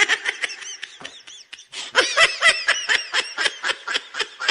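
High-pitched giggling laughter: a quick run of short squealing syllables, about four or five a second, that dips in level about a second in and then comes back louder.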